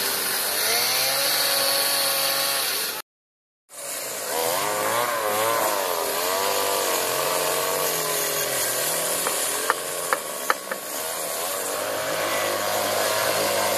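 Chainsaws running and cutting into wood for sculpture carving, their engine pitch rising and falling as the carvers rev them. The sound cuts out for a moment about three seconds in, and three sharp knocks come close together about ten seconds in.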